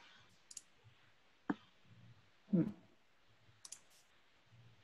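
Sparse computer mouse clicks, a few sharp single clicks spread apart, with one brief murmured voice sound about halfway through.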